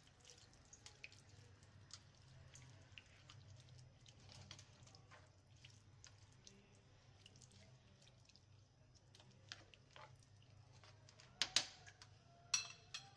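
Faint wet stirring of minced meat, onions and water in a pan with a spatula: soft sloshing with many small clicks, and a few louder knocks near the end.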